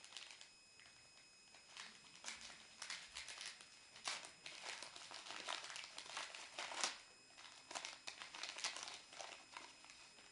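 Wrapper of a homemade trading-card pack being torn open and crinkled by hand: crackling rustles in clusters, busiest a few seconds in, then a few fainter crinkles near the end.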